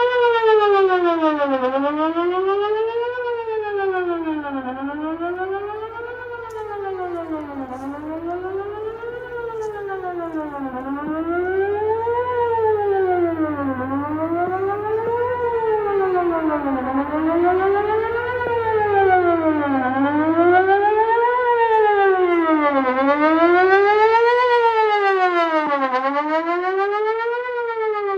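Whelen WPS-4004 electronic outdoor warning siren sounding a fast wail during a scheduled test, its pitch sweeping steadily up and down about once every second and a half. The overall loudness dips and swells slowly.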